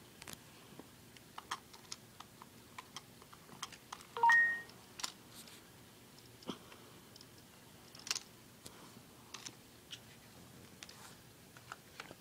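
Sony Aibo robot dog giving a short electronic beep about four seconds in, a brief lower note stepping up to a higher one, amid scattered small clicks and ticks.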